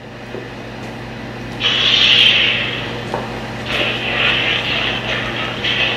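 Lightsaber sound-effect hum, a steady low drone, with swing swooshes as the lit blade is swung: one loud swoosh about a second and a half in, then a run of swings through the second half.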